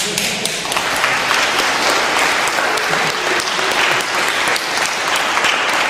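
Audience applauding, the clapping breaking out suddenly at the start and going on steadily.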